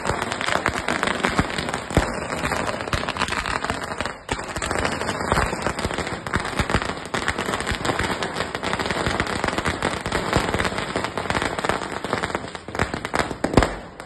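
Firecrackers going off in a fast, unbroken crackle, with louder bangs now and then; the loudest bang comes just before the end, and then the crackling stops.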